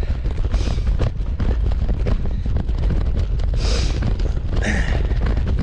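Trek Checkpoint ALR 5 gravel bike jolting over hard, dried-out tractor ruts: a constant low rumble of tyres on rough ground with a rapid run of rattling knocks from the bike, and wind on the microphone. The tyres are pumped a bit too hard for this very bumpy surface.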